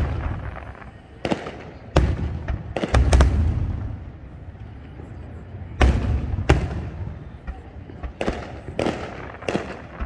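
Aerial firework shells bursting: a string of sharp booms, often a second or less apart, each trailing off in a low rolling rumble.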